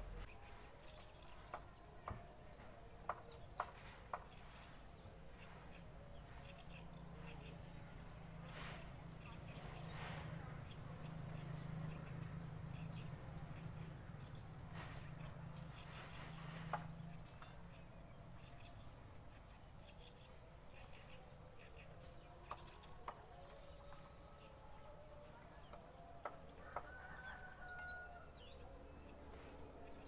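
Faint outdoor ambience: crickets chirping steadily at a high pitch. Faint chicken calls come in the last several seconds, and a few scattered clicks are heard near the start.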